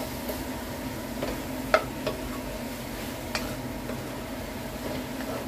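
Squid, bell pepper and onion being stirred with a spatula in a non-stick wok, the food sizzling as it fries, with a few sharp clicks of the spatula against the pan, the loudest a little under two seconds in.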